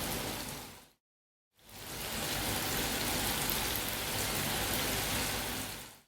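Pieces of rolled cassava dough frying in hot oil on medium heat, a steady sizzling hiss. It cuts out for about half a second a second in, then resumes until it fades at the end.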